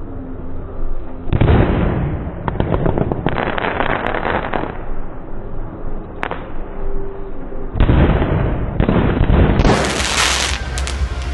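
Fireworks going off in several bursts of rapid crackling pops, with a single sharp bang about six seconds in.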